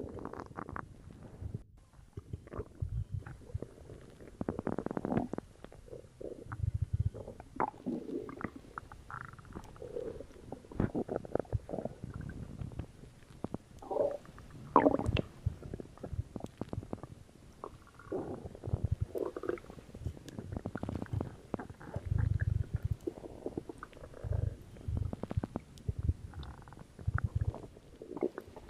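A human stomach gurgling and rumbling, with cola in it. The sound comes as many short, irregular bursts of low rumbles and watery gurgles, the loudest about halfway through.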